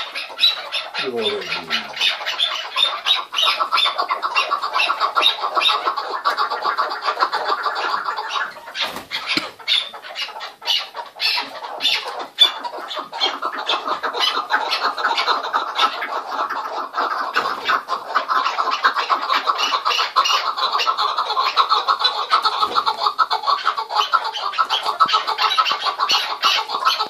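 Chukar partridges giving their rapid, chattering chuk-chuk calls, a fast run of notes many times a second. The calling thins to scattered clicks about a third of the way through, then builds back to a dense chatter.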